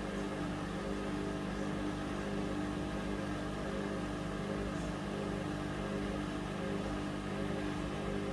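Hoover Vision Dynamic washing machine running, its motor giving a steady, even hum.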